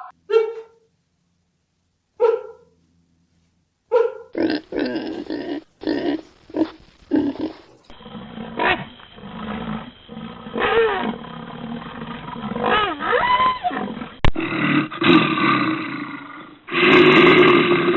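A run of loud animal calls, roars and grunts, from several different animals in turn: a few short calls with gaps of silence, then a rapid series of calls, then longer calls that glide up and down in pitch.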